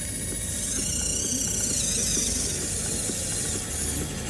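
Electric gear motors of an RC CAT 308 excavator, a non-hydraulic Bruder conversion, whining as it dumps its bucket and swings its arm down. The whine wavers up and down in pitch for a couple of seconds.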